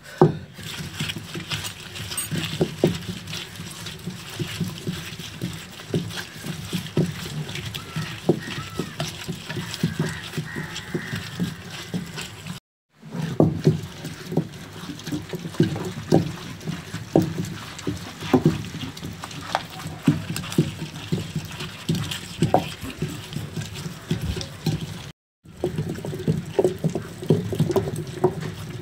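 A heavy stone pestle worked round and round in a stone grinding mortar, crushing green tamarind, chillies and garlic into a wet paste: stone scraping on stone with many irregular crunching knocks and wet squelching. The sound drops out completely twice, briefly.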